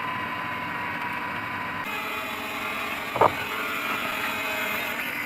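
Small brushed motors of an E88 mini quadcopter whirring steadily. The sound shifts to a brighter, hissier whir about two seconds in, and a short knock comes a little past three seconds.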